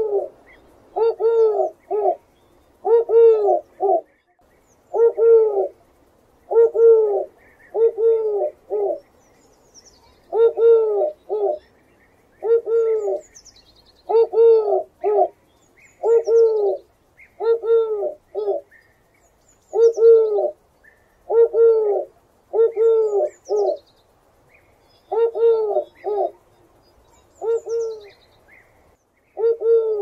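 Eurasian collared dove cooing: a low coo-COO-coo of two or three notes, repeated over and over roughly every two seconds. Faint high chirps of small birds sound above it.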